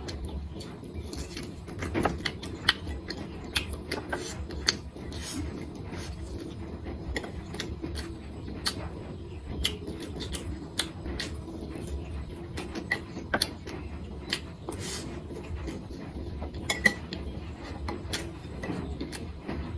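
Eating sounds: utensils clicking irregularly against a bowl and plate, with a low steady hum underneath.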